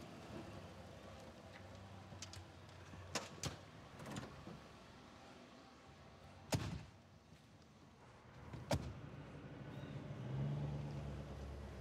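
Car doors of a 1970s Mercury sedan: latch clicks as the doors open, then two doors slamming shut about two seconds apart. A low hum swells near the end.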